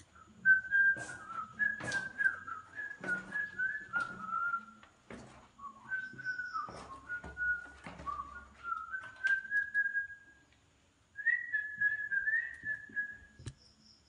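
A person whistling a slow tune in short wavering phrases that glide up and down, with sharp clicks scattered among the notes. The whistling pauses for about a second, then resumes for a last phrase.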